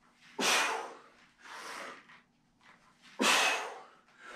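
A man breathing forcefully through the effort of single-arm TRX bicep curls: two sharp, loud breaths about three seconds apart, each followed by a softer one.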